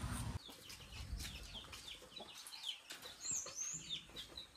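Faint, rapid high-pitched bird chirps, several a second, each dropping in pitch, with one longer high call a little after three seconds in.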